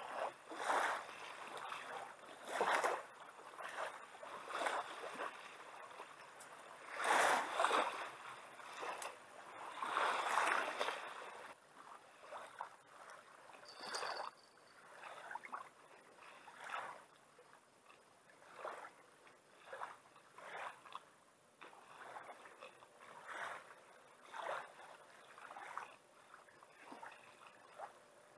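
Water lapping and sloshing against a kayak in a string of short, irregular splashes, louder in the first few seconds and softer later.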